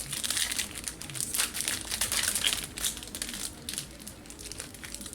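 Foil Yu-Gi-Oh booster pack wrapper crinkling as it is handled and opened, a run of irregular rustles that thins out after about three seconds.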